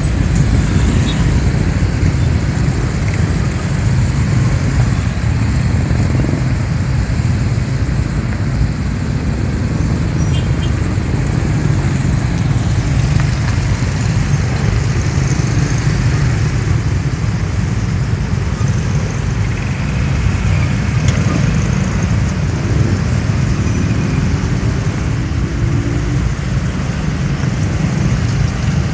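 Dense motorcycle and car traffic, the engines idling and creeping forward with a steady low rumble. A few seconds before the end, one engine revs up.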